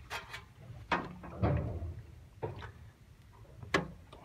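About five sharp knocks and clunks of hard tractor parts being handled, spaced unevenly, with the loudest near the end.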